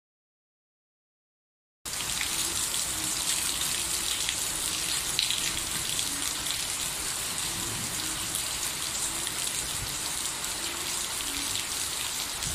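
Steady rain falling, starting abruptly about two seconds in after silence, with faint short low notes now and then in the background.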